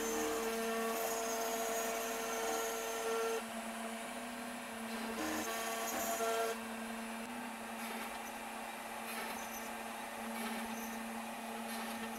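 Small CNC router spindle running and milling a shallow pocket into a plywood panel: a steady motor hum under the cutting noise, which steps down in loudness about three and a half seconds in and again just past halfway.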